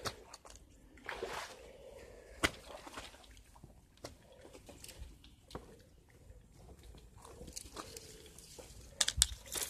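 Footsteps wading through creek water, sloshing and splashing, with scattered sharp knocks and clicks. The loudest knocks come about two and a half seconds in and in a quick cluster near the end.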